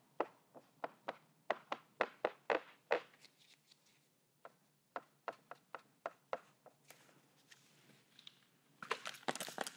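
Short, sharp taps of a small sponge dabbing dark gray paint onto textured paper, about three or four a second at first, then sparser. Near the end come a few hissing squirts from a spray bottle of water.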